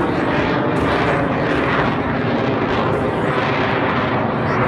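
The Screamin' Sasquatch jet-boosted Waco biplane climbing straight up under its radial piston engine and its added jet engine. It makes a loud, steady roar with a hissing edge that swells and fades about once a second.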